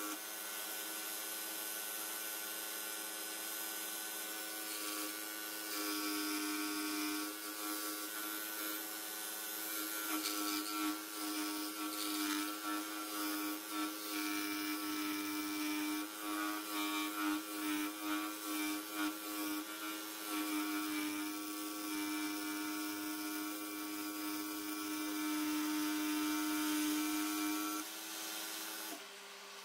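Pégas 21-inch scroll saw running with a steady hum while its fine blade cuts through a wooden tree slice; the sound grows more uneven through the middle as the piece is turned into the curves. The saw stops near the end.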